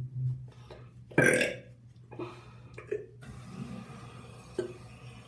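A person burps once loudly about a second in, followed by a few fainter short mouth and throat sounds, over a steady low hum.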